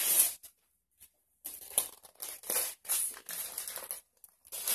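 Glittery gift wrapping paper crinkling and tearing as a present is unwrapped by hand, in irregular rustling spurts with short pauses between.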